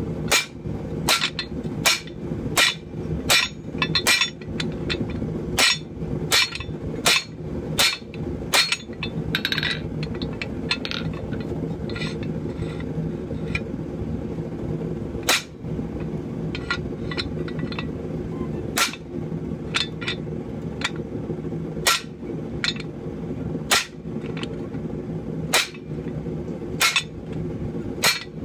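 Hammer blows on steel with a ringing clink, a quick run of about two a second for the first nine seconds, then single blows a few seconds apart. Under them runs the steady roar of the forge.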